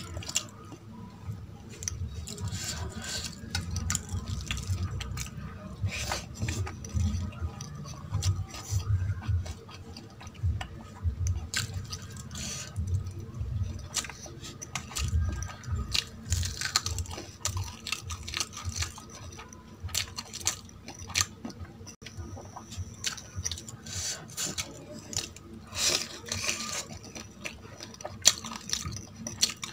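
A person eating close to the microphone: steady chewing with wet mouth clicks and smacks, and now and then a crunch.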